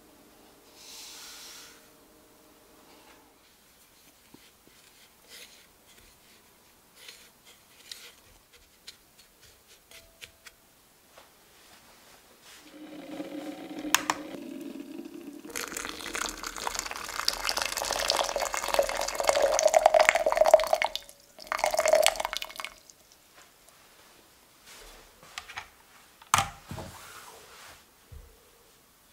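Water poured into a glass measuring jug of agar powder: a steady pour of about six seconds with a ringing note that builds, then a short second splash. Just before it comes a click from the kitchen scale's button, and near the end a knock as the jug is set down.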